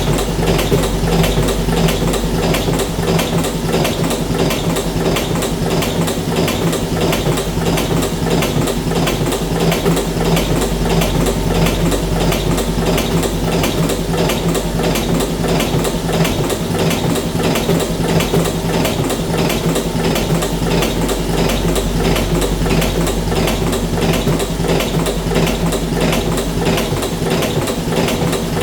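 Magnum electric cigarette filling machine running: a steady motor hum with a rapid, even mechanical clatter as it cycles.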